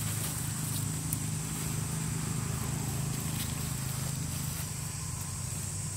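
A steady low mechanical hum, with a few faint clicks over it.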